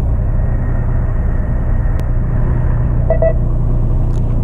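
Fishing boat's engine running with a steady low hum. A short double beep sounds about three seconds in.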